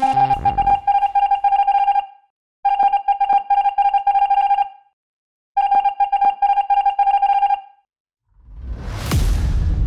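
Electronic beeping at one steady pitch, keyed on and off rapidly like a Morse code signal, in three bursts of about two seconds each with short gaps between them. A whoosh sweeps in near the end.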